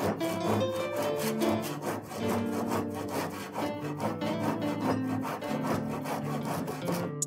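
Hand saw cutting through the wooden end of a hammer handle, steady back-and-forth strokes trimming the protruding handle and wedge flush with the hammerhead.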